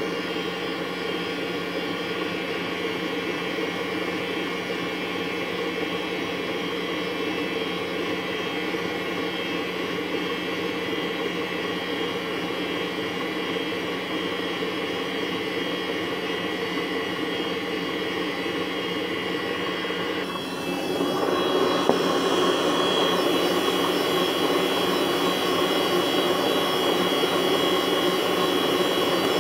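Electric mixer motor running steadily as it whips cream. About 20 seconds in its whine changes pitch and gets louder, then holds steady.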